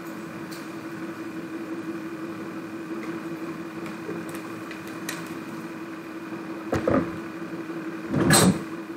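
Steady background hum with a constant low tone, broken by two short, louder noises, one about seven seconds in and a stronger one about a second later.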